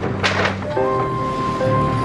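Background music: held melodic notes that change about three-quarters of a second in, with a sharp percussive hit near the start.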